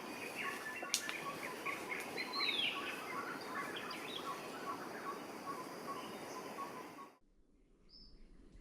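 Forest birds chirping and calling over a steady background hiss, with a short note repeating evenly underneath and one louder call about two and a half seconds in. The whole soundscape cuts off abruptly about seven seconds in to much quieter surroundings with a single brief chirp.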